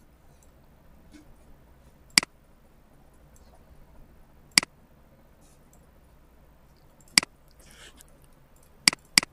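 Computer mouse button clicking: single sharp clicks a couple of seconds apart, then two quick clicks in a row near the end.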